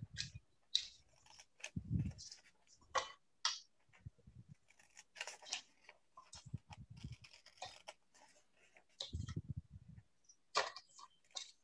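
Small sewing detail scissors snipping printed paper in short, quick cuts, with the paper rustling as it is turned. A few low thumps come in between the snips.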